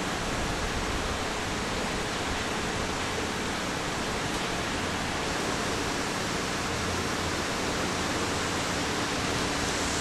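Steady rushing noise as a Kintetsu electric train approaches and runs in along the platform, growing louder near the end.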